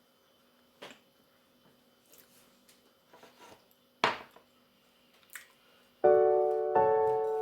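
Quiet eating sounds, faint scattered clicks and taps with one sharper click about four seconds in. About six seconds in, keyboard music starts with loud held chords, two of them struck in quick succession.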